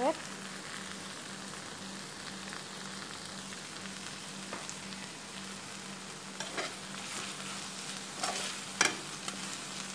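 Sliced sausage in tomato sauce sizzling steadily in a frying pan. From about six and a half seconds in, a metal skimmer spoon scrapes and knocks against the pan several times as the mixture is stirred.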